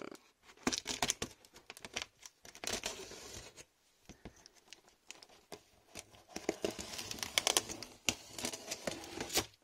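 Small craft knife slicing through packing tape and cardboard along a box seam: a run of irregular scratchy crackles and tearing sounds, with a brief lull about four seconds in.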